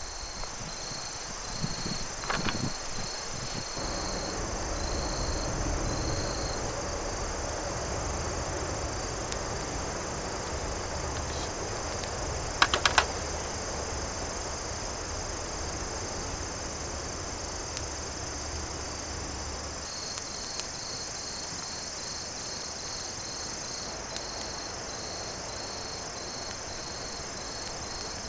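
Crickets and other insects chirping, a steady high trill with a pulsing chirp that drops out in the middle and comes back. A few sharp snaps or clicks come about two seconds in and again near the middle, and a low steady rush runs under the first two-thirds and then stops, while twigs are handled and lit in a small fire pit.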